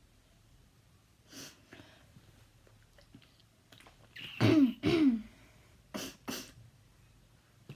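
A child's habit cough: two loud, harsh coughs in quick succession, each dropping in pitch, then two shorter coughs a second later. A fainter, breathy burst comes about a second in.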